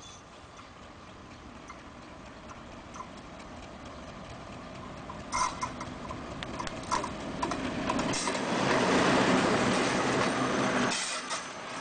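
ALCo-design WDM-2B diesel-electric locomotive approaching and passing at speed with an express train. Its engine and wheel noise grow steadily louder, with sharp clicks of the wheels over rail joints from about halfway. The sound is loudest as the locomotive goes by near the end, then the deep engine sound drops away suddenly as the coaches follow.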